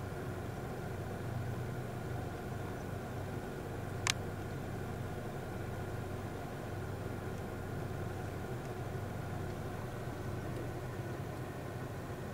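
Vehicle engine idling steadily, with one sharp click about four seconds in.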